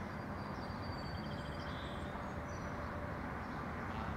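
Outdoor ambience: a steady low background rumble with a few faint, high bird chirps in the first half.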